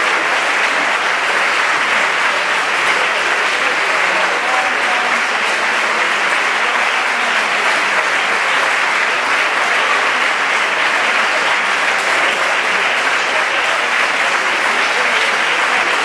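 Steady applause from many people clapping together.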